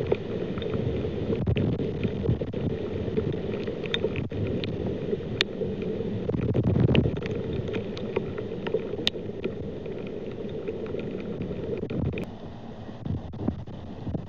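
Steady rain falling around an outdoor camera microphone, a dense low rushing noise with many sharp drip clicks of drops hitting close by. It becomes quieter about twelve seconds in.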